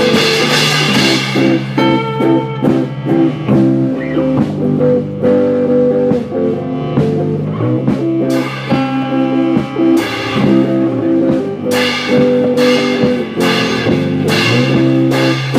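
Instrumental passage of a rock song with no vocals: guitar playing over a drum kit.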